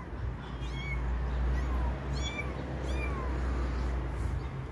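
Young kittens mewing: short, high-pitched calls about once a second, dropping away near the end.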